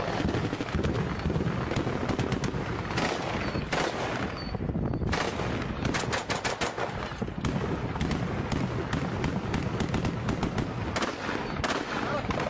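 Automatic gunfire in a firefight: shots crack in quick strings and overlap, with the fastest run of rapid shots about halfway through.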